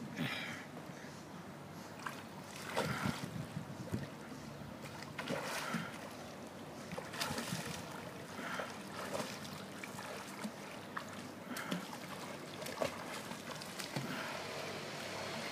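A child swimming in a pool, her strokes splashing and sloshing the water in irregular bursts.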